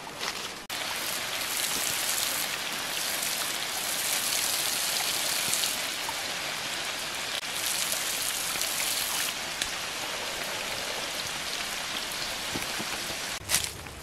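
Water spraying out in a fine jet and pattering onto leaves and the forest floor: a steady, dense hiss that starts abruptly about a second in and cuts off near the end.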